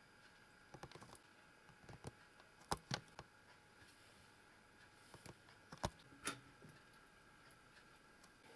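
A quiet room with a scattered series of light, sharp clicks and taps, as of small objects being handled and set down.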